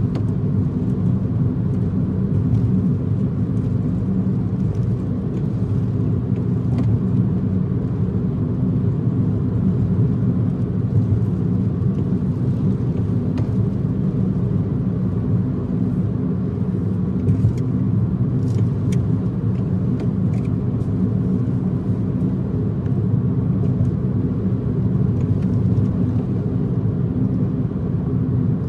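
Car cruising at speed on an expressway: steady low road and tyre rumble.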